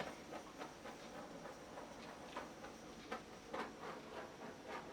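Faint, scattered light clicks and ticks, about half a dozen at irregular intervals, over quiet room tone.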